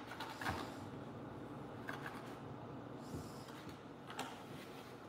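Faint sounds of kinetic sand play: a few light taps and scrapes of small plastic tools against a plastic tray, spaced a second or two apart, over a low steady room hum.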